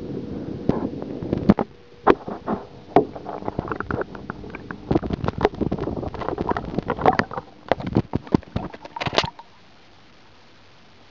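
Muffled water sloshing and gurgling in a bathtub, with many irregular clicks and knocks, as muscovy ducklings paddle around a camera held at or under the water surface. It cuts off suddenly about nine seconds in, leaving a faint steady hiss.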